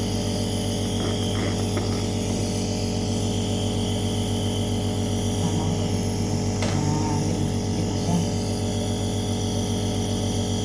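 A steady mechanical hum made of several constant low tones, unchanging throughout. There are faint voices in the middle and a brief click about two-thirds of the way in.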